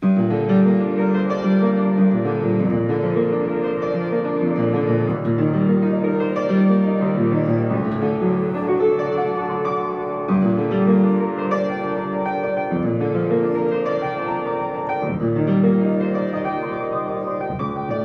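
Upright acoustic piano played solo: a flowing piece with a recurring low figure under higher notes, starting suddenly right at the beginning.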